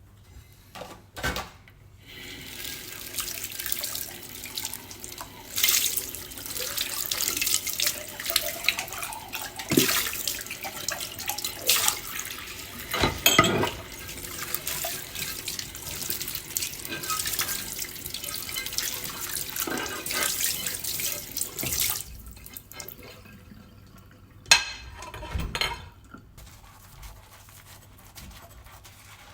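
Dishes being washed in a kitchen sink: a tap runs steadily into the sink, with a few knocks of dishes among the water, then the tap is shut off about three quarters of the way through and a couple more dish knocks follow.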